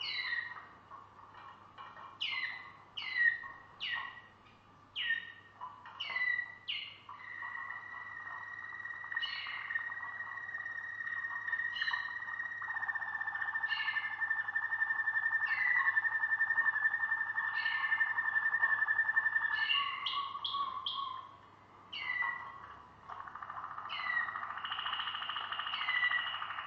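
Waterslager (Malinois) canary singing. It opens with a string of quick notes that slide sharply downward, about two a second. Then comes a long held whistle with a rolling undertone for about twelve seconds, broken every couple of seconds by the same falling notes, and another held rolling passage near the end.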